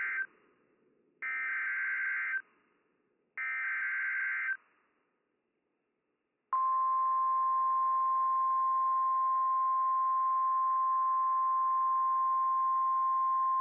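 Emergency alert data header: the tail of one buzzing SAME data burst and then two more, each about a second long, with short gaps between them. About six and a half seconds in, a steady single-pitch NOAA Weather Radio warning alarm tone starts and holds. It signals the severe thunderstorm warning that follows.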